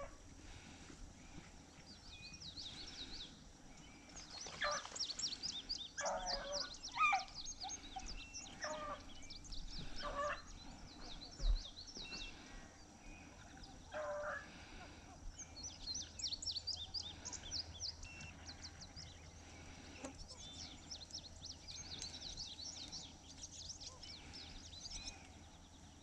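Faint baying of beagles running a rabbit, drawn-out bawls coming in scattered bunches, over songbirds chirping in rapid high trills.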